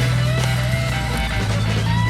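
Background music: a guitar-led track with steady low notes and a wavering melody line.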